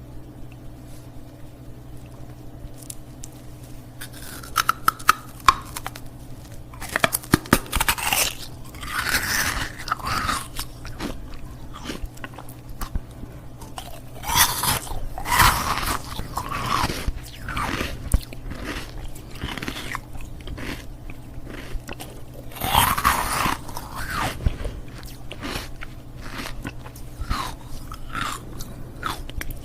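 Ice cubes being bitten and crunched between the teeth close to the microphone, in irregular clusters of sharp cracks and chewing that begin a few seconds in. A steady low hum runs underneath.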